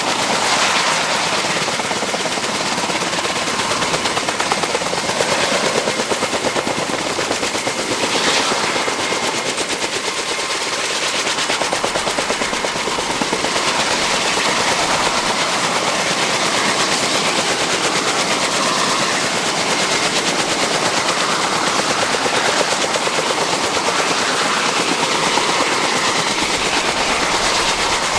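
Kaman K-1200 K-MAX helicopter's intermeshing twin rotors in flight, a rapid, dense blade chop at steady power, with a thin steady high whine over it.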